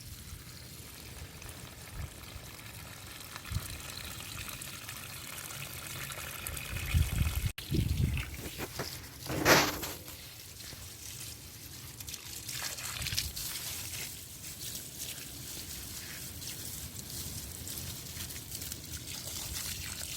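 Water trickling and pouring steadily, with a few low knocks about halfway through and one short, sharp clatter just after them.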